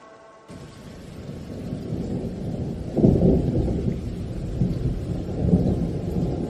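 Low rolling thunder that comes in about half a second in, swells to its loudest crack about three seconds in and keeps rumbling after.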